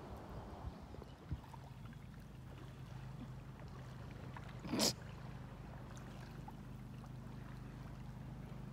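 Quiet paddling sounds on open lake water, with faint lapping and small knocks, over a steady low rumble. One brief, louder rush of water about five seconds in.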